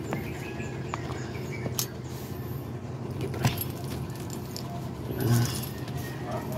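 Steady low background hum, with a few light clicks and clinks as beaded bracelets on moving hands and the handheld phone are jostled, and a short low sound about five seconds in.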